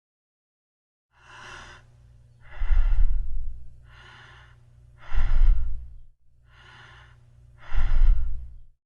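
Lung breath sounds heard through a stethoscope in an auscultation recording: three breath cycles, each a softer breath phase followed by a louder, longer one with a low rumble. A low steady hum runs beneath.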